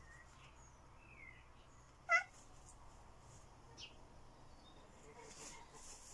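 A cat gives one short, brief meow about two seconds in.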